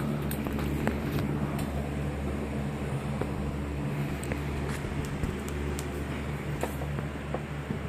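A steady low hum with a few even low tones in it, broken by scattered light clicks and knocks.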